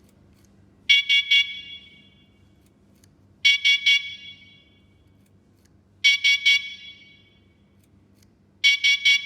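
Gaciron V18 bike light's electronic horn sounding four times, about two and a half seconds apart, each a quick cluster of high pitched beeps. Each sounding comes from a forward flick of the remote as the horn volume is stepped up.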